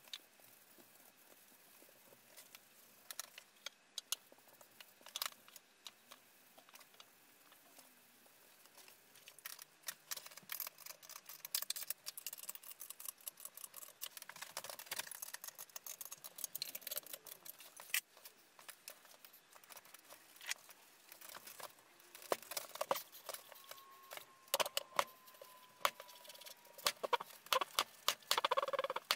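Handling sounds of Dore Westbury milling machine parts on a timber stand: scattered clicks and knocks, a stretch of rubbing and scraping in the middle, then a run of sharper metal clinks and clanks near the end as the parts are fitted together.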